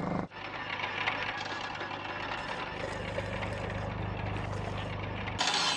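Motor-driven pump running steadily, drawing groundwater up from a drill hole, with a low hum under a fast rattle. It stops near the end.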